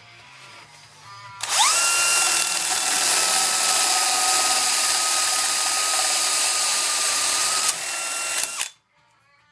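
Electric power tool motor spinning up with a quickly rising whine about a second and a half in, then running loud and steady for about six seconds. It eases off near the end and stops abruptly.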